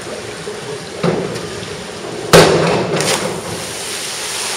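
A diver's springboard thuds about a second in, then the body hits the pool with a loud splash, the sharpest and loudest sound, followed by spray falling back into the water, all echoing in the pool hall.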